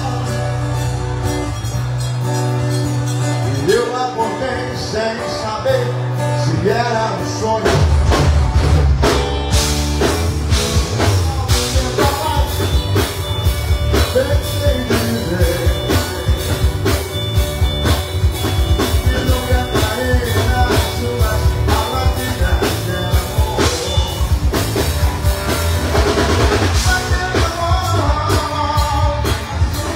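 Live rock band playing: acoustic and electric guitars, bass and drum kit, with a male singer. The bass and drums drop back early on, then the full band with a steady drum beat comes in about eight seconds in.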